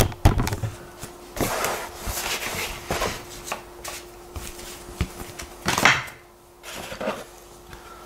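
Handling noises: the rustle and flap of a paper booklet being closed and set aside, with several knocks and clicks against the wooden presentation box and its tray as a Victorinox Swiss Army knife is lifted out and opened.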